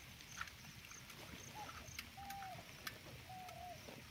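Faint animal call: a short note that rises slightly and falls, repeated about once a second. Scattered light ticks and a soft hiss of rain sit underneath.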